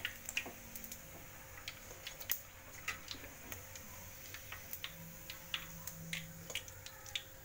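Chicken pieces deep-frying in hot oil in a wok, giving scattered, irregular crackles and pops over a faint steady hum.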